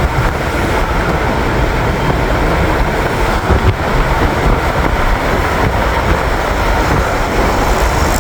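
Steady low rumbling noise with no clear pitch and no distinct events.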